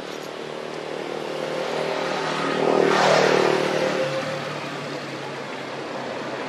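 A motor vehicle passing by: a steady engine hum that swells to its loudest about three seconds in and then fades.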